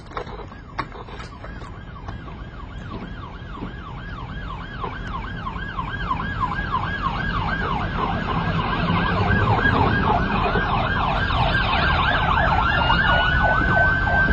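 Police car siren in fast yelp mode, about three rising-and-falling sweeps a second, growing steadily louder as the vehicle approaches. Near the end the yelp changes to one long, slowly rising tone, with engine and road noise underneath.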